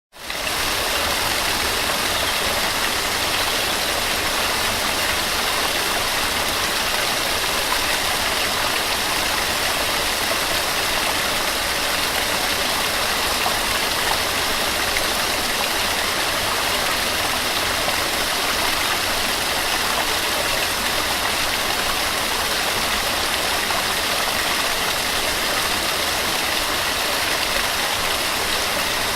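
Small waterfall splashing and rushing with a steady, even hiss of falling water that does not change.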